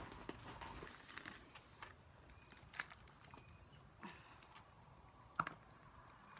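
Handling noises while potting up: rustling at a plastic potting-mix bag, then soft knocks of small black plastic plant pots being picked up and pulled from a stack. The sharpest knock comes about five seconds in.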